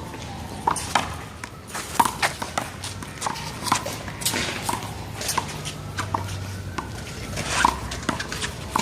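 Sharp, irregular smacks of a small rubber handball during a one-wall handball rally: the ball struck by hands, hitting the wall and bouncing off the pavement.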